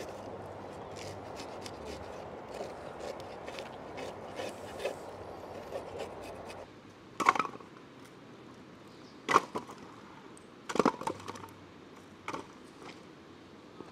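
River water running steadily over stones, cutting off about six seconds in. Then split firewood pieces are set down on a stack, giving four or five sharp wooden knocks about a second and a half apart.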